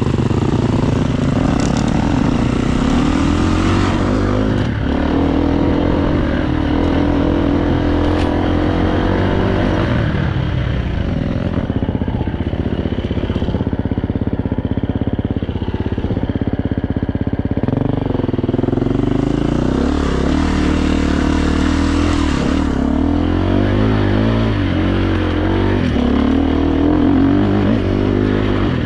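KTM 350 EXC-F four-stroke single-cylinder dirt bike engine, heard close up from the bike itself as it is ridden along a trail. Its pitch rises and falls with the throttle, with shifts about 10 and 18 seconds in.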